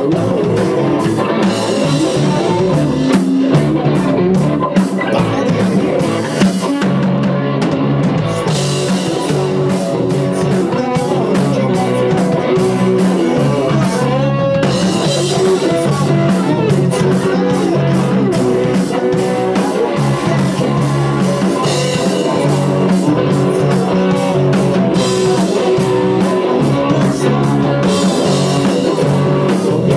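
Rock band playing live in a small rehearsal room: electric guitar and drum kit, with a singer on vocals.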